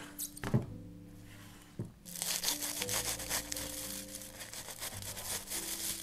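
Metal baking tray set down on a wooden board with three knocks, then aluminium foil crinkling as it is pulled open, from about two seconds in. Background music plays underneath.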